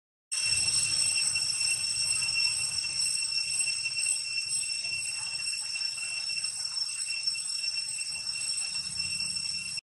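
Steady, high-pitched drone of insects, unbroken throughout, over a faint low rumble; the sound drops out briefly just after the start and again just before the end.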